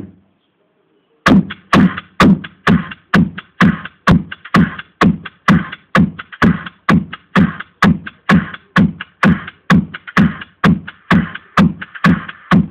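Electronic dance music with a steady, fast kick-drum beat, starting after a gap of about a second at the beginning.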